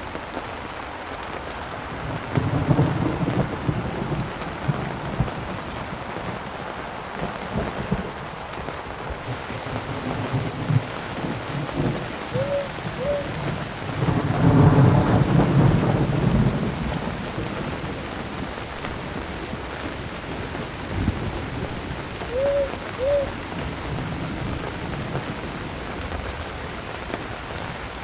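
Crickets chirping steadily, about three chirps a second, over rain, with a roll of thunder about two seconds in and a louder one about fourteen seconds in. An owl hoots twice, a pair of short notes each time, about twelve and twenty-two seconds in.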